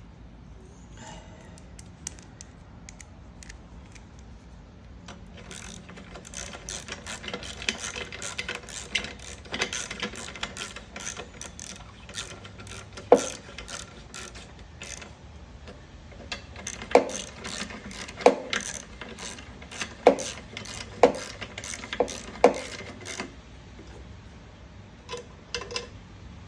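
Hand tools and small metal parts clicking as parts are fitted back onto a lawnmower carburetor. There is a run of rapid clicking, then about six sharper clicks roughly a second apart.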